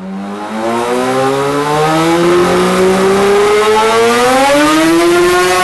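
521cc Supercub big-bore Yamaha Banshee twin two-stroke engine under a dyno pull, its pitch climbing steadily for about five seconds, then falling sharply right at the end as the throttle comes off.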